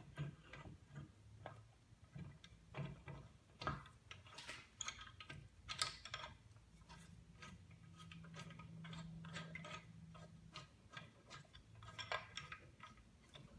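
Faint, irregular light metallic clicks and ticks as propeller mounting bolts are threaded in by hand through the crush plate and propeller hub.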